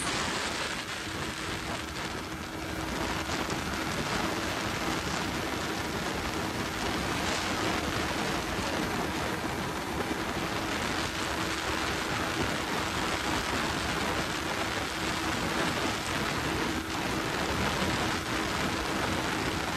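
Steady wind rush over the microphone of a motorcycle riding at speed, with a steady hum underneath.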